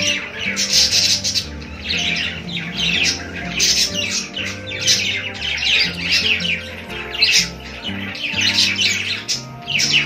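Several budgerigars chattering and warbling with fast, overlapping chirps and squawks, over background music with low sustained notes.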